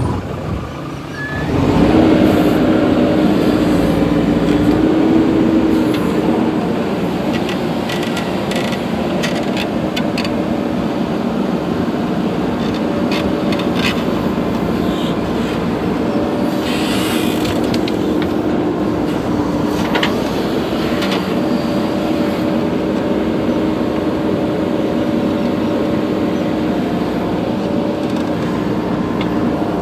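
Heavy diesel engine revving up about a second and a half in, loudest for a few seconds, then running steadily under load, with a few sharp knocks now and then.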